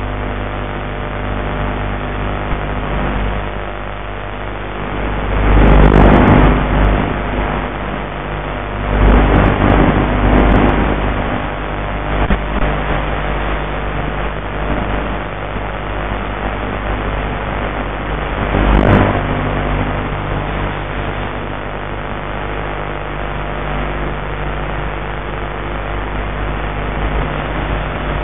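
The Mini Talon's electric pusher motor and propeller humming steadily in flight, heard through the onboard FPV audio. A louder rushing noise swells three times, around six, ten and nineteen seconds in.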